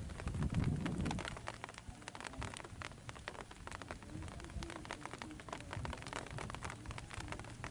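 Outdoor ambience: a low rumble, strongest in the first second, over a steady patter of faint crackles and ticks.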